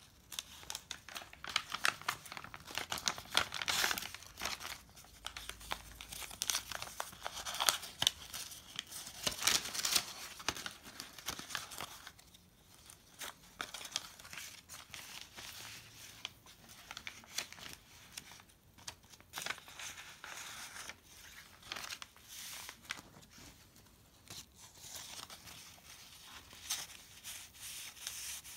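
Paper rustling and crinkling as the stiff, aged pages of a handmade junk journal are turned and loose tucked papers are pulled out and handled. Dense, irregular crackles, busiest in the first ten seconds or so, then lighter and more scattered.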